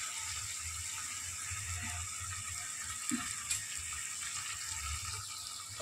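Onions, green chillies and curry leaves sizzling steadily in hot oil in an aluminium pot.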